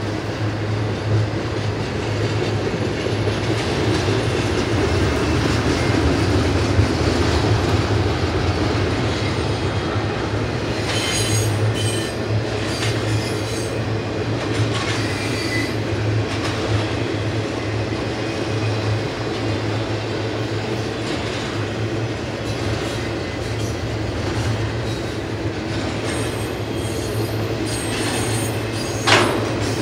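Double-stack intermodal well cars rolling past: a steady rumble of steel wheels on the rail. Short, sharp metallic screeches and clanks come about eleven to fifteen seconds in, and one more comes near the end.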